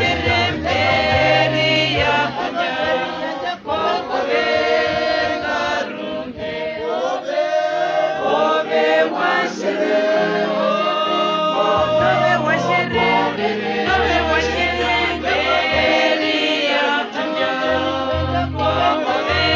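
A group of voices singing a hymn together, steadily throughout.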